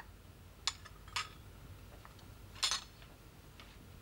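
Several light, irregular clinks and clicks, like small china or metal objects touching, the loudest a little after halfway through, over a faint low hum.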